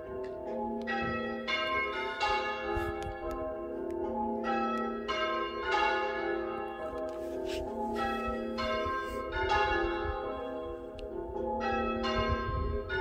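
Church bells ringing a peal, one bell struck after another about one and a half times a second, each note ringing on into the next.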